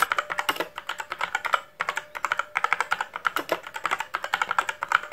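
Rapid clicking of computer keyboard typing, in quick runs with short pauses between them.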